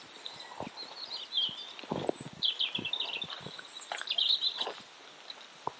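Small birds chirping in short quick bursts of high notes, three times over, with a few soft irregular footfalls on gravel.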